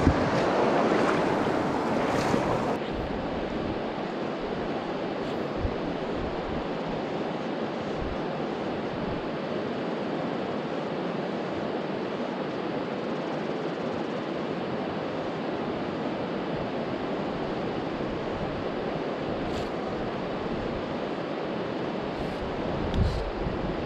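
Steady rushing of flowing river water, a little louder in the first few seconds while the microphone is over a shallow riffle. A soft low thump near the end.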